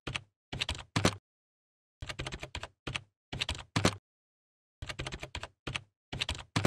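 Computer keyboard typing sound effect: bursts of rapid key clicks, about six of them, each under a second long, with short gaps of dead silence between them as the text is entered.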